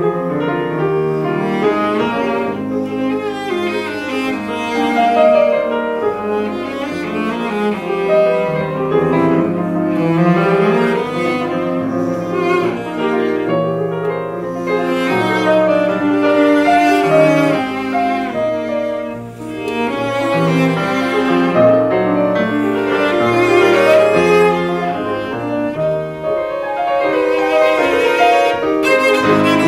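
Cello and grand piano playing together: a bowed cello melody over piano accompaniment, continuing without a break.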